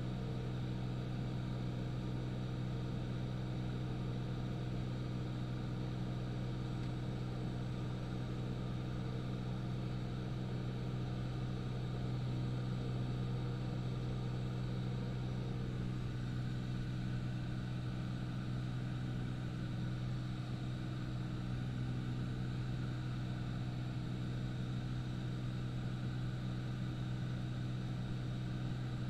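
The propeller engine of a high-wing light aircraft in level flight, a steady, unchanging low drone.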